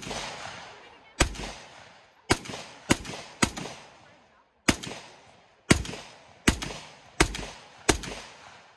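A rifle fired in a string of about ten single shots, spaced irregularly half a second to a second apart, each shot followed by a fading echo.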